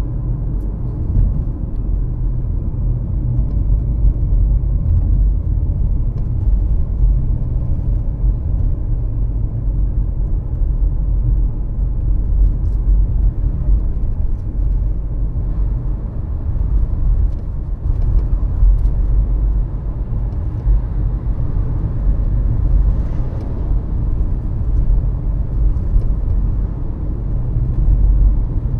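Steady low rumble of a vehicle driving at road speed: engine, tyre and wind noise.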